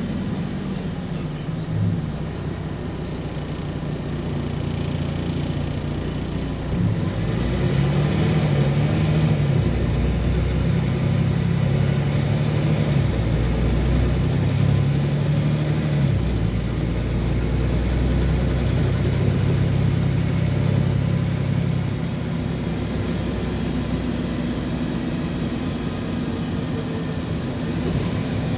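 A LiAZ 5292 city bus's engine and drivetrain running, heard from inside the passenger cabin: the engine note climbs and falls as the bus pulls away and moves through traffic, louder from about 7 s to about 22 s, with steady road and cabin noise throughout.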